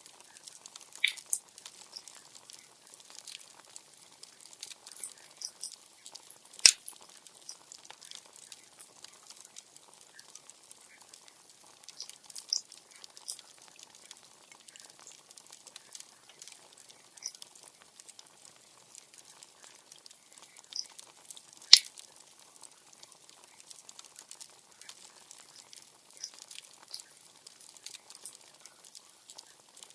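Wood bonfire crackling: scattered small crackles over a faint steady hiss, with two sharp, loud pops, one about a quarter of the way in and one about three quarters in.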